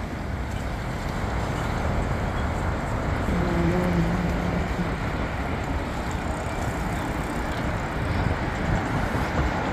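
Steady city street traffic noise, with a brief low steady tone about three and a half seconds in.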